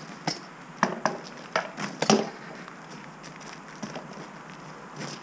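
A handful of sharp knocks and clacks, the loudest pair about two seconds in: swords striking wooden round shields in a sparring bout.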